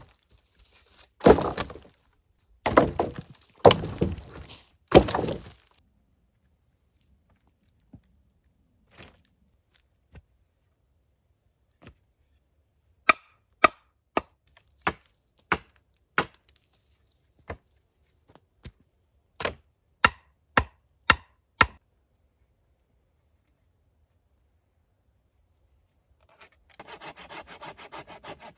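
Wood being worked by hand: about four long rasping strokes, like a saw, at the start, then a run of sharp knocks, and a rasping again near the end.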